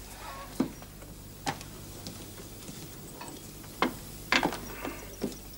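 Irregular light knocks and clicks of people handling things in a room, with objects set down on a wooden table. The busiest cluster comes about four seconds in.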